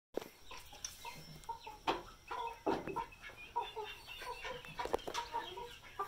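Chickens clucking: many short, repeated calls overlapping one another, with a few sharp knocks among them.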